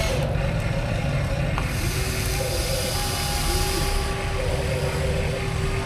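Electric motors of radio-controlled construction machines whining steadily over a low hum. The whine shifts pitch as the machines work, dropping near the end.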